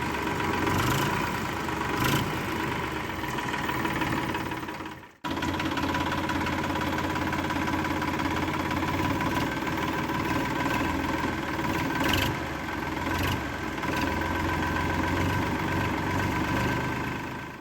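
Steady engine running sound from miniature toy tractors at work. It cuts out abruptly about five seconds in and picks straight back up.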